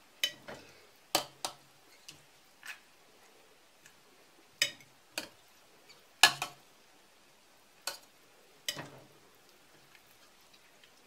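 A perforated metal skimmer and a fork clinking against a stainless steel pot and a plate while chicken wings are lifted out of broth: about a dozen sharp, irregular clinks, the loudest just past the middle.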